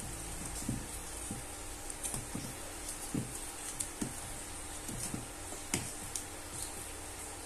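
Hand whisk clicking and knocking against the side of a mixing bowl at irregular intervals as it beats a thick batter of tapioca flour, coconut milk and eggs, over a faint steady hum.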